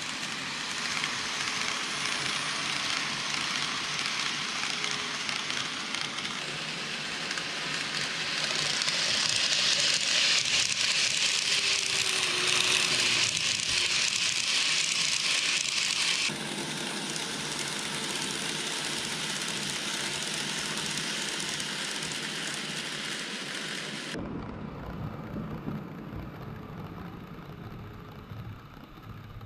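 N gauge model train (KATO 117 series) running on layout track: a steady, crackly rattle of metal wheels on rail. It turns louder and brighter about eight seconds in, drops back about halfway, and goes duller near the end.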